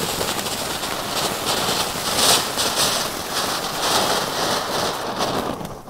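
Ground fountain firework spraying sparks with a steady hiss and fine crackling. It dies away just before the end.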